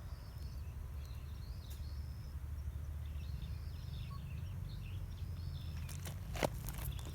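Outdoor ambience: small birds chirping repeatedly over a steady low rumble, likely wind on the microphone. A few sharp clicks come about six seconds in.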